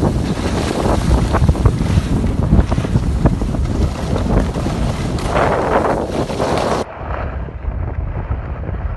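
Wind buffeting a phone microphone while skiing downhill, with swells of hissing from skis scraping over packed snow. About seven seconds in, the sound turns duller and quieter.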